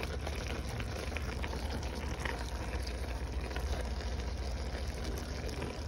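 Ground beef and sausage sizzling in a frying pan while being stirred with a spatula, with a few faint scrapes through the meat, over a steady low hum.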